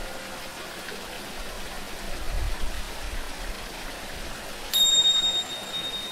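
A Tibetan singing bowl's low ring fading out, then, near the end, a tingsha struck once with a sudden high, long ring, all over a steady wash of running water.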